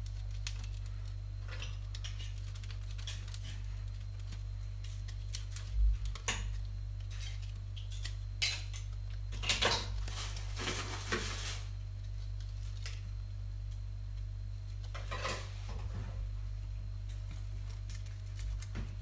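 Knife blade scraping, clicking and prying against oyster shells as oysters are shucked by hand, with occasional shell clinks; the scraping is heaviest about halfway through. A steady low hum runs underneath.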